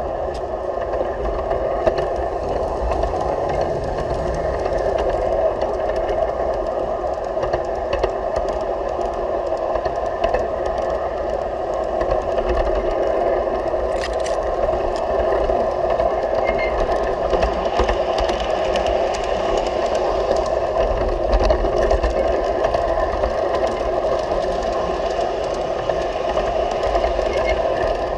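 G-scale garden railway train running, heard from a camera riding on it: a steady whir of its electric motor and gearing with a low rumble, and scattered clicks and rattles from the wheels on the track.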